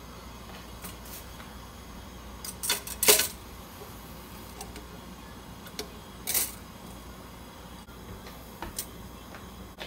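Collapsible stainless-steel steamer basket clinking against a wok as it is set down and its perforated petals are shifted into place: a few sharp metal clinks, the loudest about three seconds in, another about six seconds in, and lighter ticks between.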